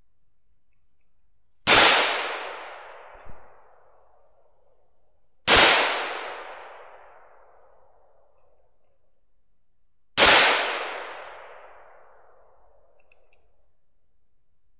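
Three rifle shots about four to five seconds apart, each a sharp crack followed by a long rolling echo, heard through a rifle-mounted thermal scope.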